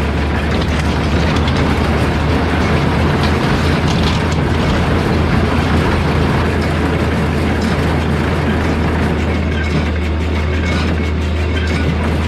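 Tractor running with a John Deere small square baler working behind it: a steady low engine drone under continuous mechanical clatter.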